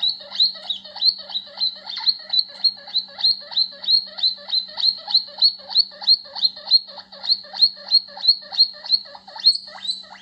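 Recorded guinea pig wheeking, played back from a phone: a fast, even run of short rising squeaks, about three or four a second.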